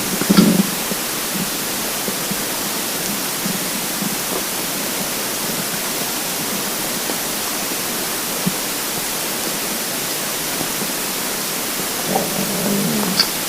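Hungry, empty stomach rumbling: a short low gurgle just after the start and a longer gurgling growl near the end, over a steady hiss.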